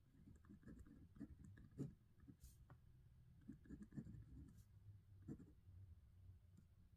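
Handwriting on paper, faint and close: irregular small scratches and taps of a writing tip moving across the page.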